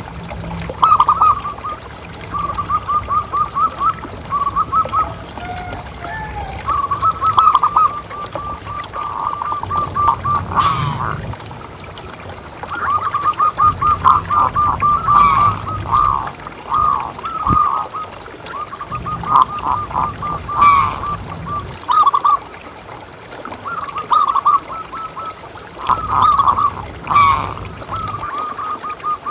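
Zebra doves (perkutut) calling: rapid runs of short, repeated cooing notes that overlap one another almost without pause. A few brief sharp noises stand out over the calls.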